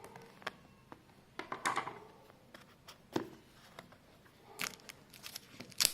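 Fingers picking and scratching at the plastic seal of a smartphone box, with crinkling and scraping in short bursts and a few sharp clicks. The seal is not giving way to the fingers.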